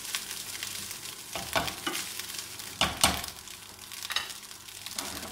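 Fried rice sizzling in a nonstick frying pan as it is stirred and tossed with a spatula, which scrapes and knocks against the pan a few times, loudest about three seconds in.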